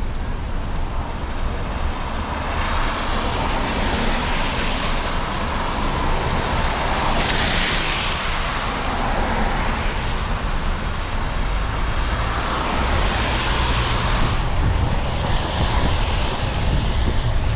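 Car driving on a rain-wet city street: a steady low road rumble, with tyre hiss on the wet pavement swelling and fading three times.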